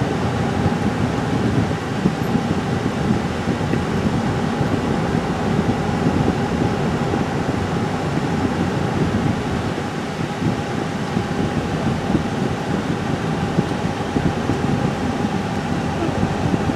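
Steady road noise inside a moving car's cabin: a low, even rumble of tyres and engine with a faint steady hum above it.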